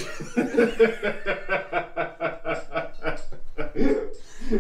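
A person laughing in one long run of quick snickering chuckles, about five pulses a second.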